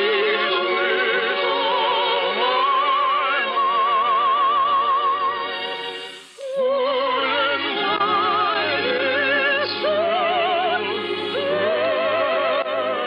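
Operatic singing with strong vibrato over an orchestra, in a narrow-band old radio recording. The music drops away almost to nothing about six seconds in, then comes back.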